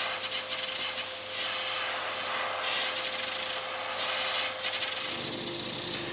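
Compressed-air hand tool running: a steady whine over a loud rushing air hiss, changing in tone about five seconds in.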